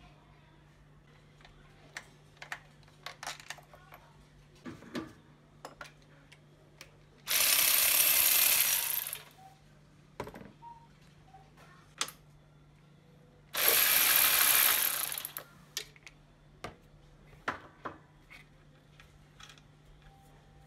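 Hand tools and parts clicking and knocking in a car's engine bay. Twice, a loud hissing noise lasts about two seconds, once about a third of the way in and again about two thirds of the way in.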